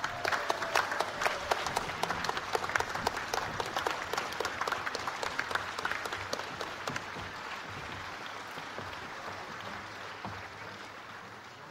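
Audience applauding: many hands clapping, dying away gradually toward the end.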